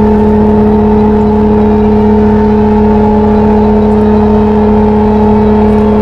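Emergency Alert System attention signal: a loud, steady electronic alert tone held without a break, sounding before an emergency action notification message.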